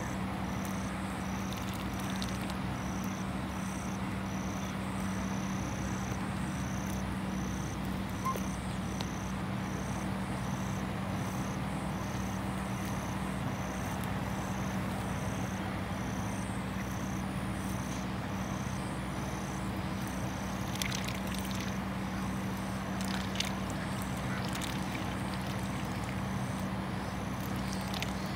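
Outdoor field ambience: a steady low hum under a high, insect-like chirp that pulses a little under twice a second, with a few short sharp clicks or calls about three-quarters of the way in.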